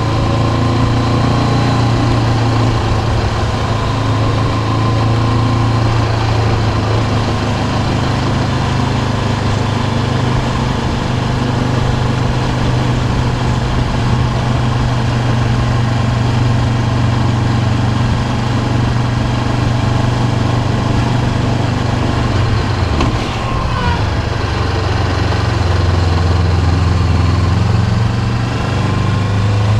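Honda CB500X's parallel-twin engine running steadily while riding, over wind and road noise. The engine note changes about three quarters of the way in and settles lower near the end.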